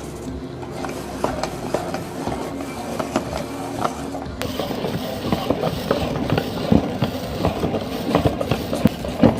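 Glass marbles clattering and knocking in a meat grinder: rapid irregular clicks that grow denser after an abrupt cut about four seconds in.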